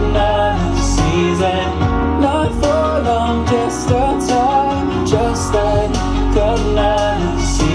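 A song with a sung melody, percussion and deep bass, played through a Doss Soundbox XL Ultra Bluetooth speaker as a sound test.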